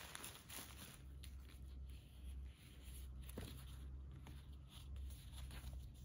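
Faint rustling and handling of bubble wrap and a paper envelope, with a few soft clicks, over a steady low hum.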